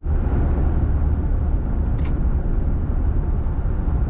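Steady low rumble of road and engine noise inside a moving pickup truck's cabin, with one short click about two seconds in.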